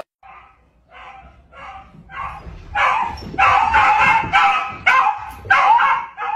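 Dog barking repeatedly, about two barks a second, starting soft and growing louder about three seconds in.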